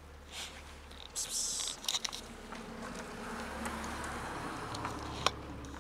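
Cats crunching dry kibble, with crisp bites and clicks against the plastic tub and one sharp click near the end.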